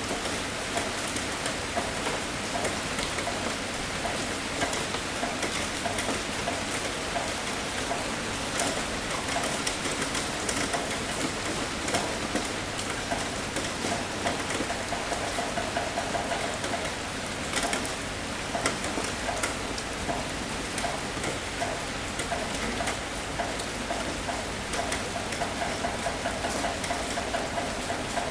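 Steady rainfall, a constant wash of noise with many separate drops hitting close by, sharp little ticks scattered throughout.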